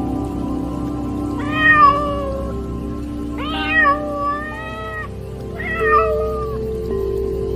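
A domestic cat meowing three times, the second meow the longest, over soft ambient background music.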